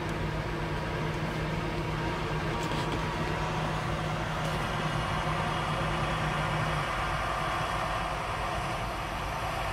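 Peterbilt 389's diesel engine idling steadily, heard from inside the cab. A low, steady hum within the idle cuts out about seven seconds in.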